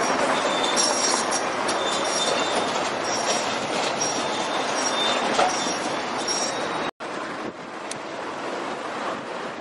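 Heavy MAN F2000 truck with an empty tipper trailer passing slowly over a rough road: steady road noise and rattling, with short high squeals coming and going. About seven seconds in the sound cuts abruptly to quieter street noise with wind on the microphone.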